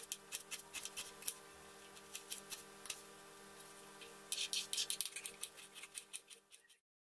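Kitchen knife slicing a red onion on a wooden chopping board: quick taps of the blade on the board, several a second, with a faster flurry of chops about four to five seconds in. A faint steady hum runs underneath, and everything cuts off suddenly near the end.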